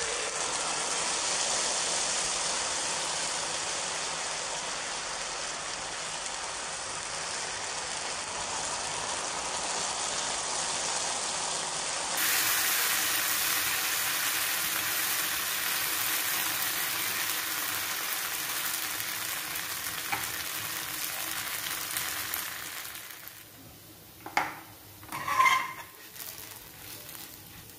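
Rice flour dosa batter sizzling steadily in hot oil on a flat pan as it is spread with a ladle. The sizzle dies down sharply about 23 seconds in, and a couple of short, sharp sounds follow near the end.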